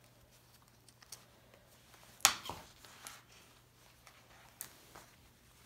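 Knit hoodie fabric being handled and turned over on a cutting mat: short rustles and light knocks, the loudest about two seconds in.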